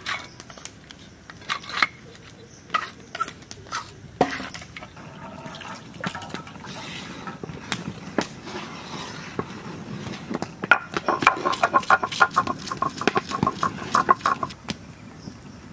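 Stone grinding roller knocking and rocking on a flat stone grinding slab (shil-nora) as fresh ginger is crushed into paste. There are scattered single knocks and scraping at first, then a fast run of sharp knocks from about 11 to 14 seconds in.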